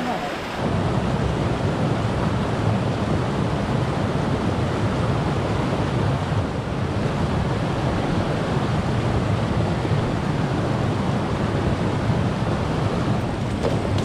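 Swollen mountain stream rushing steadily, with wind rumbling on the microphone; the low rumble sets in sharply about half a second in.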